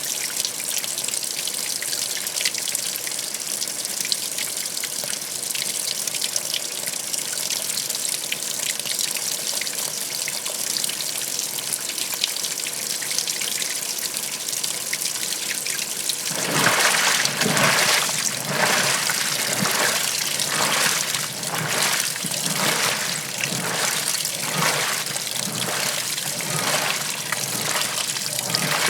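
Washing machine with water running steadily into the tub. A little over halfway through, the wash starts: water sloshing in regular surges, a bit more than one a second.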